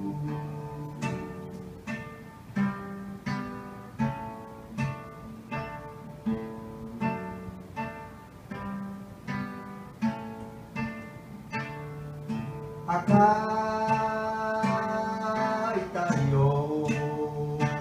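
Acoustic guitar picked note by note, each note ringing out and fading, in an instrumental passage of a song. About thirteen seconds in, a man's voice comes in with long held sung notes over the guitar.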